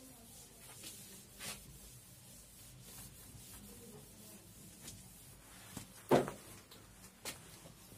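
Faint rubbing of a duster wiping marker writing off a whiteboard, then a single sharp knock about six seconds in, with a lighter one about a second later.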